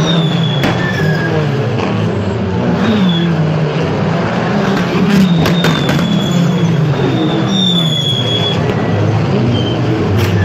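Several TCR touring cars with turbocharged four-cylinder engines driving past one after another at low speed, each engine note falling in pitch as the car goes by, with a thin high whine over them.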